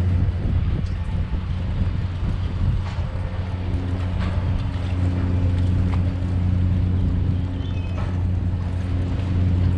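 Passenger ferry's engine droning steadily in a low hum, heard from the open deck, with wind and water noise over it; a second, higher note joins about three seconds in.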